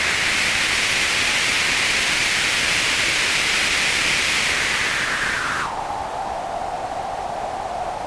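White noise played through a modified Dunlop GCB-95 Cry Baby wah pedal. It is a steady hiss with a bright, whistly peak held high, which sags a little. About five and a half seconds in, it drops suddenly to a much darker, lower whoosh.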